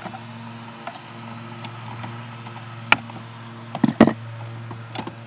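Steady drone of a lawn mower engine running, with a few sharp metallic clicks and knocks from pliers working the antenna base's metal mounting hardware. The loudest clicks come in a short cluster about four seconds in.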